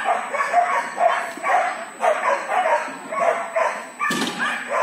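A dog barking in quick succession, about three sharp barks a second, with one thump about four seconds in.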